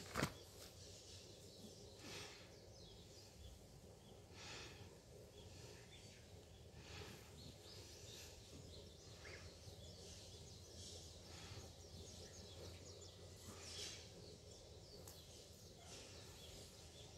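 Near silence: faint outdoor ambience with a steady low hum and faint short high-pitched sounds every second or two, and one sharp click just after the start.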